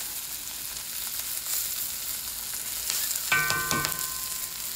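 Diced onion and sausage sizzling steadily in hot fat in a wok as a spatula stirs them, with a short ringing scrape of the spatula against the pan a little over three seconds in.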